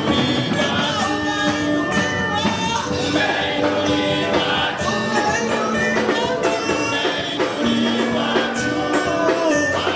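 Men's gospel choir singing a worship song with live band accompaniment, holding long notes over a steady beat.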